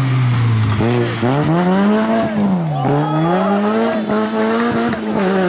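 Peugeot 106 rally car's four-cylinder engine revving hard as it pulls away through the gears: the pitch dips about a second in, climbs steeply, drops at a gear change near three seconds in and climbs again.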